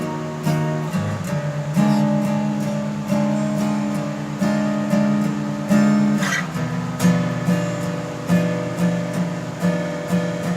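Acoustic guitar strumming chords in a steady rhythm, with a chord change about two seconds in and again about six seconds in, where there is a brief scrape of strings.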